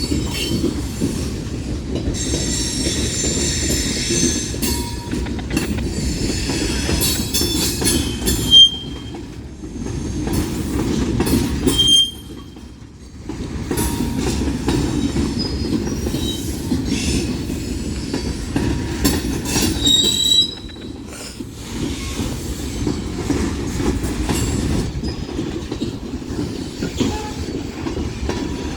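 Freight cars of a BNSF manifest train rolling past close by: a steady heavy rumble with wheel-on-rail clicks and high-pitched wheel squeal in the first several seconds. Two sharp clanks ring out about nine and twelve seconds in, the first the loudest sound.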